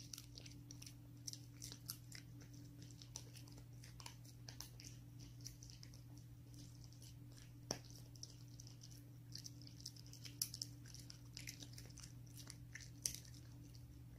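French bulldog chewing and gnawing a dried mini pork trotter treat: faint, irregular crunching and clicking bites, with a low steady hum underneath.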